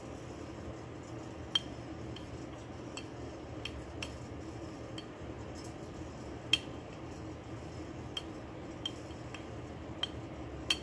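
Clown marionette being worked, its hard parts giving scattered light, sharp clicks and taps, a dozen or so at uneven intervals, the loudest about one and a half and six and a half seconds in, over a steady low hum.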